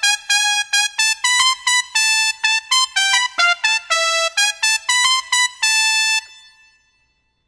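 Yamaha Genos 2 keyboard playing its factory SectionHorns brass-section voice: a quick run of short, detached brass notes in a moving melody. The notes stop about six seconds in and die away.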